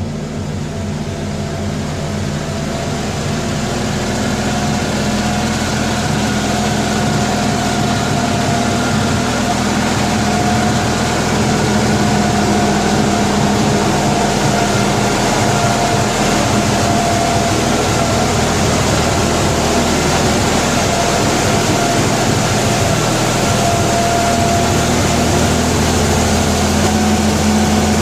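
Ford 2000 tractor's engine running at a steady idle, growing louder over the first ten seconds or so, then holding steady.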